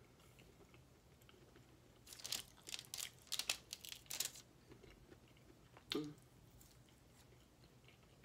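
Crackling, crunching noises for about two seconds near the middle as food is eaten and handled on a foil-lined tray, with a few lighter ticks after and a brief lower sound about six seconds in.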